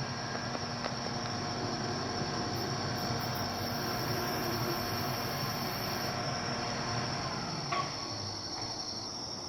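Steady chorus of night insects, a constant high-pitched drone, over a low steady rumble, with a single click near the end.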